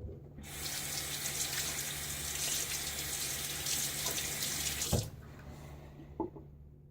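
Bathroom sink tap running with a steady rush of water, shut off suddenly about five seconds in with a sharp knock, followed by a couple of small clicks.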